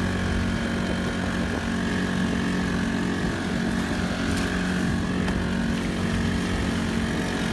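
Honda GX35 35cc four-stroke single-cylinder engine running steadily under load, driving a small pontoon boat through choppy water.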